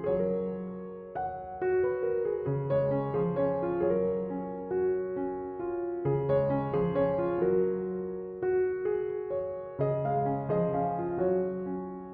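Gentle background piano music, with notes and chords that ring and fade.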